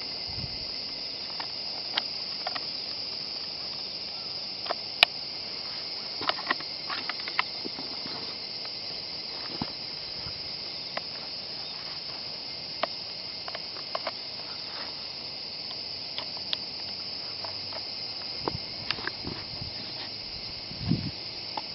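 Scattered sharp clicks and knocks of a WE G39C gas blowback airsoft rifle's parts being taken apart and handled, the sharpest about five seconds in, over a steady high-pitched drone of insects.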